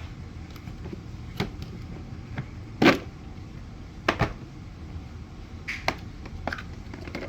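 Plastic vacuum cleaner parts knocking and clicking as they are handled and fitted together: a string of separate sharp clicks and knocks, the loudest about three seconds in.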